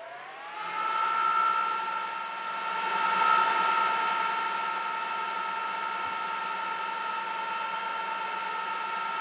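Cooling fans of a Citrix Access Gateway AG-2010 1U rack server, three dual-rotor fan units, spinning up at power-on. Their whine rises in pitch over the first second, then holds as a loud, steady, high-pitched whine with a rush of air: the fans running at full speed before the fan power management slows them.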